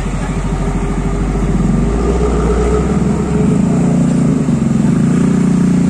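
Diesel engine of a large cargo truck running as the truck pulls away, the engine note growing louder and fuller about three and a half seconds in.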